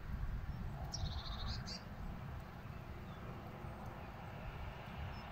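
Wind rumbling on the microphone, with a short, high-pitched bird call about a second in.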